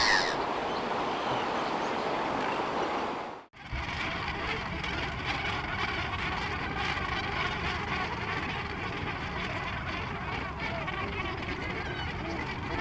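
Wind and surf noise, then, after a short break about three and a half seconds in, the steady massed din of a Cape gannet colony calling, with wind.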